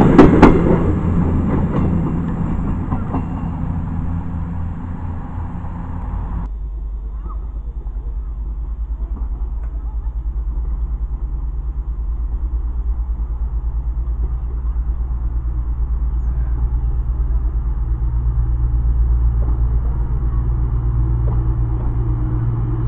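Passenger coaches rolling past, their rumble and wheel noise fading away over the first six seconds; then, after a cut, a CrossCountry Voyager diesel multiple unit approaching, its underfloor diesel engines giving a steady low hum that grows a little louder toward the end.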